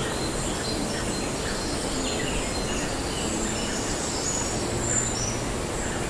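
A flock of macaws calling, with many short, high calls over a steady, dense background of noise.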